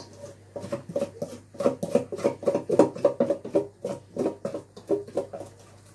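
Spoon scraping and knocking against a stainless steel mixing bowl in quick repeated strokes, about three or four a second, scraping out cake batter. The strokes start about half a second in and stop about a second before the end.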